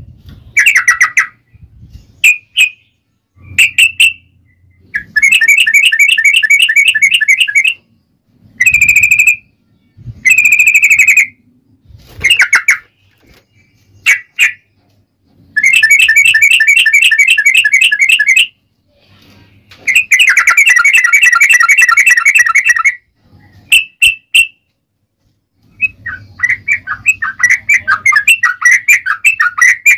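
Yellow-vented bulbul (trucukan) singing: loud phrases of rapid, chattering, trilled notes, some short and some running two to three seconds, separated by brief pauses. Near the end the phrases run together into an almost unbroken stream.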